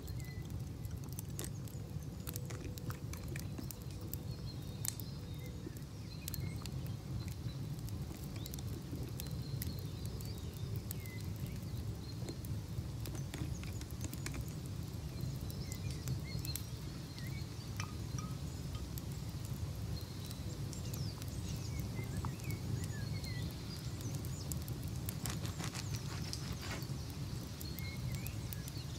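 Crackling log fire: a steady low rumble with many scattered sharp pops and crackles, and a few faint high chirps.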